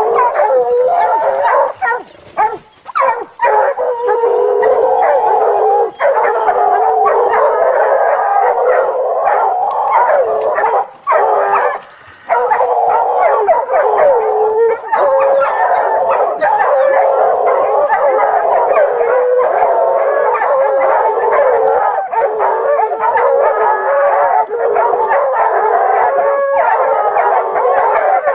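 A dog baying and howling almost without pause in long, wavering calls, broken by short gaps about two to three seconds in and again around eleven to twelve seconds in.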